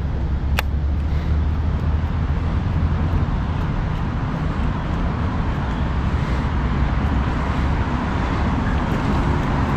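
Steady low outdoor rumble, with a single faint high tick about half a second in.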